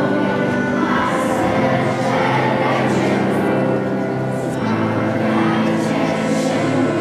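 Children's choir singing a Polish Christmas carol (kolęda) in unison, the notes held and changing every second or so.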